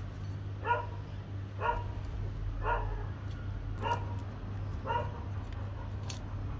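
A dog barking five times, about once a second, over a steady low hum.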